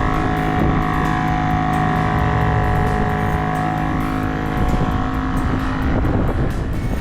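Portable air compressor running steadily, re-inflating off-road tyres after the trail, with a constant motor hum.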